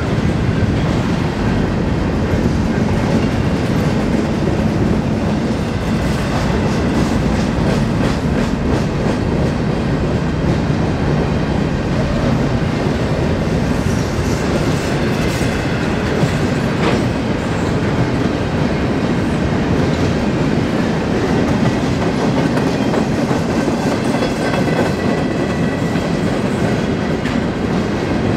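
Freight train cars rolling past at a steady speed: a continuous rumble of wheels on rail, with wheels clicking over rail joints.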